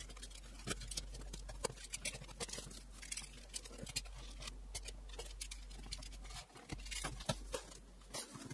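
Unboxing a cardboard box: a utility knife slitting packing tape, then tape peeling and the cardboard flaps being pulled open, a faint run of irregular crackles, clicks and scrapes.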